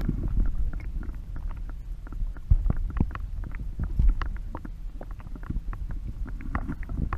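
Muffled low rumble of a camera submerged in an ice-fishing hole, with many faint scattered clicks and light knocks.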